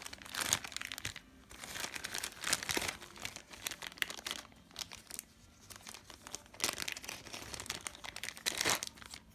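A small plastic bag from a TV accessory kit being handled and opened: irregular crinkling and crackling, with a few louder crackles.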